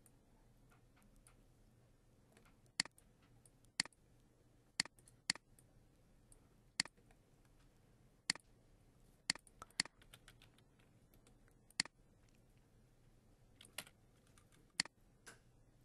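Computer mouse clicking: single sharp clicks at irregular intervals, roughly one a second, with a quick cluster of several near the middle, over a faint low hum.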